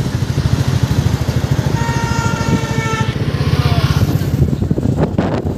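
Motorcycle engine running in street traffic, its rapid low pulsing steady throughout. A vehicle horn sounds one steady note for about a second in the middle, and wind buffets the microphone near the end.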